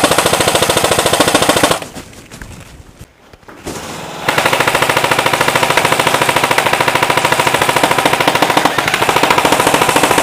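Airsoft electric guns firing on full auto, a very rapid rattle of shots. The first burst stops about two seconds in, and after a quieter gap a long unbroken burst starts about four seconds in.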